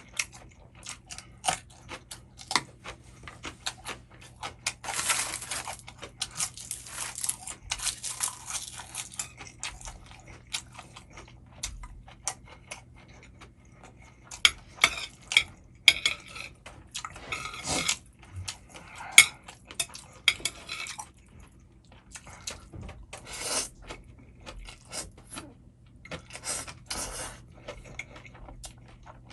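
Eating Chapagetti noodles: utensils clicking and scraping against a dish again and again, with eating noises in between.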